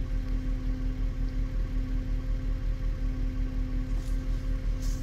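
A motor running steadily: a low hum that throbs about four or five times a second, with a constant higher tone over it.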